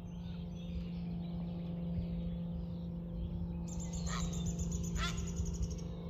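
Birds calling: faint chirping throughout, then two short, louder calls in the last two seconds, over a steady low hum.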